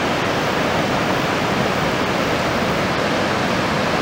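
Fast mountain river rushing over boulders: a steady, loud rush of white water.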